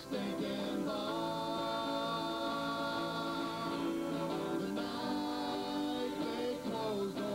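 Live acoustic band music: strummed acoustic guitars under voices holding long sung notes.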